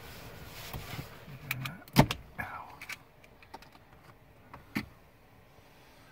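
Handling noise from wiring work: scattered clicks and knocks of a hand tool and loose cabin trim, the loudest about two seconds in, followed by a short falling squeak.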